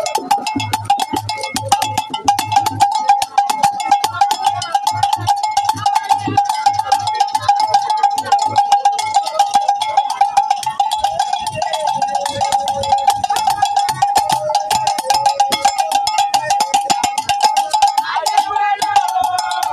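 A metal bell struck or shaken rapidly and without pause, its ring steady throughout, with low regular thuds and voices singing along beneath it.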